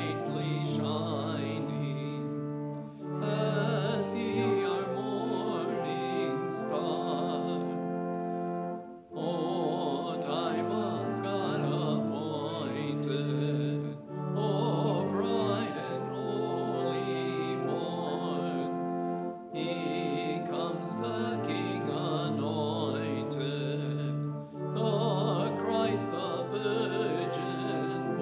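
Hymn singing: a congregation sings a Lutheran hymn to organ accompaniment in held, sustained chords. It goes in phrases, with a short break for breath about every five seconds.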